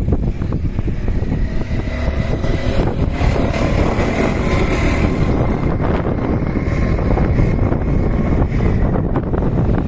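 Several go-karts' small engines buzzing as the pack passes close by, with wind buffeting the microphone.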